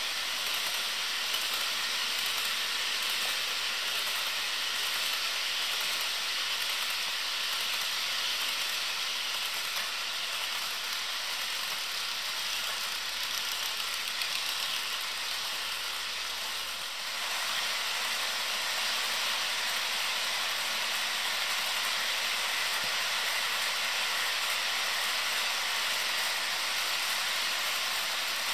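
HO scale model freight trains rolling along the track: a steady rushing hiss of metal wheels on rail and running locomotive motors, with a brief dip about seventeen seconds in where the sound shifts.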